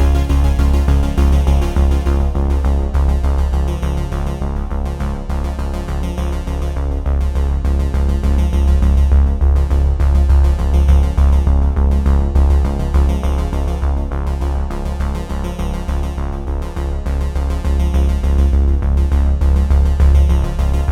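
Background music: electronic synthesizer music with a strong bass and a steady beat.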